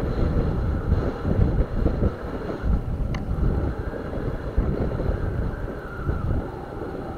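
Wind buffeting the microphone: a loud, gusting low rumble that rises and falls unevenly, as from a camera carried on a moving bicycle.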